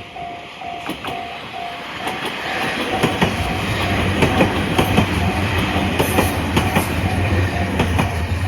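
Japanese level-crossing alarm ringing a short repeating tone about two and a half times a second. From about three seconds in, a train passes over the crossing with a loud rumble, its wheels clicking over the rail joints.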